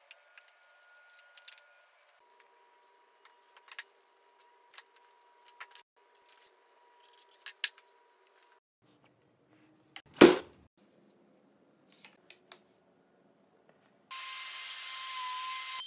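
Light handling sounds of glue bottles, pencil and wood pieces on a workbench: scattered small clicks and taps, with one sharp knock about ten seconds in. Near the end a wood router starts up and runs steadily with a high whine.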